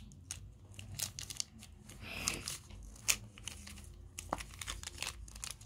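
Clear plastic wrapper crinkling and crackling as it is handled and cut open with scissors: scattered small clicks and crackles, the loudest about three seconds in.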